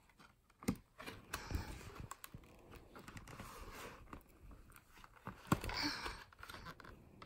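Pages of a thick children's board book being handled and turned: faint rustling of stiff card with a few soft knocks.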